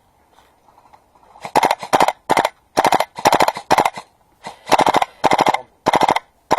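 Airsoft gun firing on full auto in short bursts of rapid clicks, about ten bursts beginning about a second and a half in.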